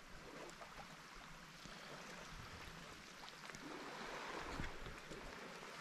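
Faint, steady wash of small waves lapping in shallow water at the shore, with a few light ticks.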